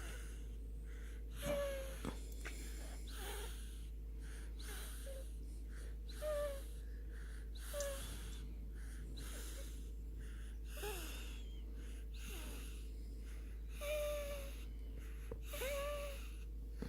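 Snoring in sleep: a soft, wheezy breath about every second and a half, many of them ending in a short, high nasal whistle.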